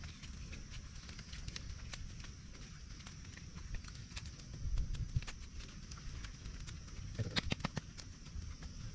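Small twig campfire crackling with scattered pops and snaps, a cluster of sharper snaps about seven seconds in, over a steady high hiss and low rumble.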